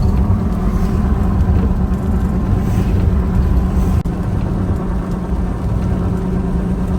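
A motor vehicle on the move: a loud, steady low engine and road rumble with a constant hum, unchanging throughout.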